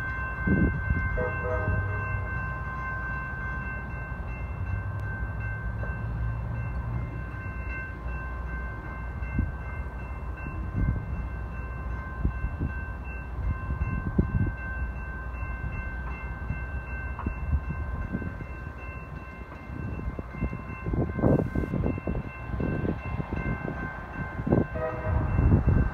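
Diesel locomotive of an approaching train, still out of sight, running with a low rumble. Its horn sounds briefly about a second in and again near the end.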